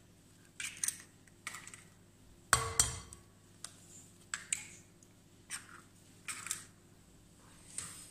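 Eggs cracked against the rim of a glass mixing bowl and pulled open. A pair of sharp knocks with a short glassy ring about two and a half seconds in is the loudest, amid softer clicks and crackles of eggshell.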